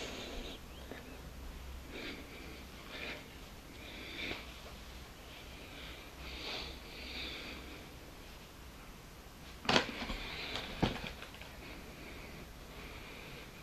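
Veil cloth rustling as it is handled and adjusted close to the microphone, in soft swishes every second or two. Two sharp knocks come about ten and eleven seconds in.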